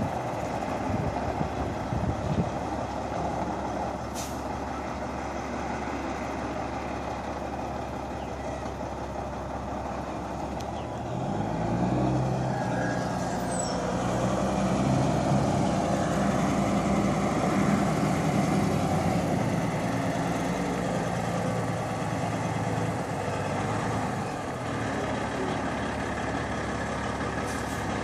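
Semi tractor's diesel engine running as the truck drives across a gravel lot. About eleven seconds in the engine note rises and grows louder as it pulls harder, then holds.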